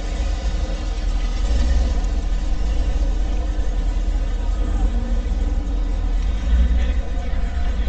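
Engine of a lowered square-body Chevrolet pickup rumbling steadily as the truck rolls past through a parking lot.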